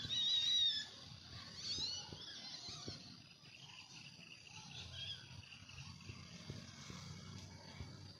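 High, warbling animal calls, loudest in the first second and repeating around two and three seconds in, then trailing off into fainter chirps, over a steady low rumble.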